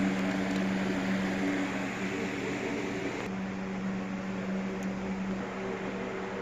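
Steady hum of running fans with a low drone and an airy hiss; the hiss drops off about halfway through.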